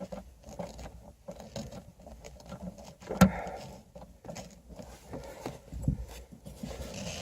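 Hand tools working on the screws under a car's rear parcel shelf: scattered small clicks, scrapes and rustles, with one sharper knock about three seconds in.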